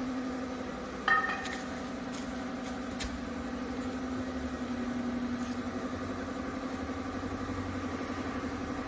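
Spindle moulder with its mounted power feeder running without any wood, giving a steady electric-motor hum. About a second in there is a sharp metallic clink that rings briefly, and a smaller click follows a couple of seconds later.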